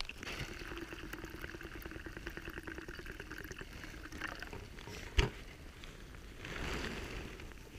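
Liquid pouring from a stainless steel thermos into its cup lid: a steady gurgling pour lasting about four seconds. A single sharp click comes a little after five seconds in.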